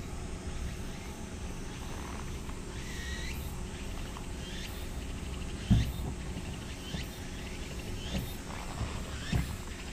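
Short bird chirps, roughly one a second, over a low steady outdoor rumble, with a loud soft thump about halfway and a smaller one near the end.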